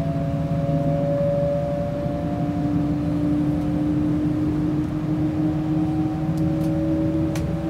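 Cabin noise of a Class 390 Pendolino electric train under way: a steady rumble of wheels on rail with a traction-motor whine that slowly rises in pitch as the train gathers speed. A few faint ticks come near the end.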